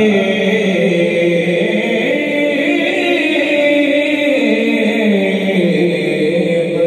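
A man singing a naat into a microphone, holding long notes that slide slowly up and down in pitch without a pause.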